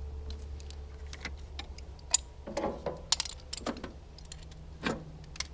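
Irregular metallic clinks and clicks of hand tools and loose metal parts being handled, with a few short clatters, over a steady low hum.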